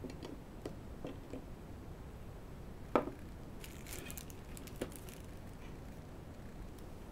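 Tabletop handling sounds: a few light clicks, a sharper knock about three seconds in, then about a second of crinkling from a clear plastic bag as a metal drill bit case is picked up.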